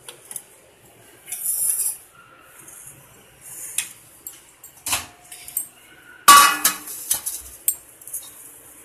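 Stainless steel bowls being handled and set down on a stone countertop: scattered clinks and knocks, a brief scrape, and one loud ringing metal clank a little past halfway.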